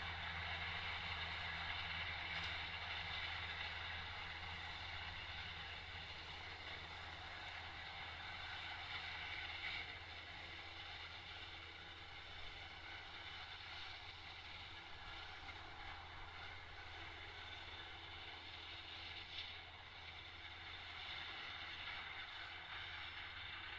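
Tractor engine running steadily under load while its mowers cut grass, a constant low drone with a hiss of cutting above it. It grows fainter as the tractor moves away, then a little louder near the end.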